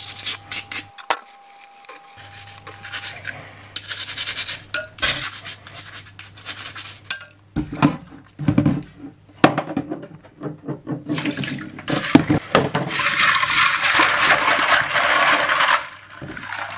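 A hand scrub brush scrubbing plastic keyboard keycaps in soapy water, in short repeated strokes, with water sloshing. Near the end comes a longer stretch of swishing, splashing water as the keycaps are worked by hand in a bowl.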